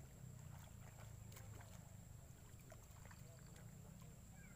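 Near silence: faint riverbank ambience, a low steady rumble with a few faint clicks and short chirps.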